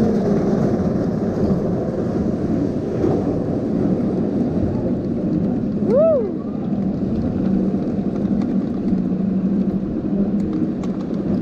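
Montu inverted roller coaster train being hauled up the chain lift hill: steady mechanical clatter from the lift. About six seconds in, a short rising-and-falling voice call from a rider.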